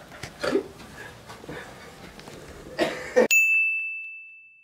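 Rustling and bumping of a handheld camera being moved about. About three seconds in, everything else drops to dead silence and a single high, bell-like ding rings on one steady pitch and fades away over about a second and a half: an edited-in chime sound effect.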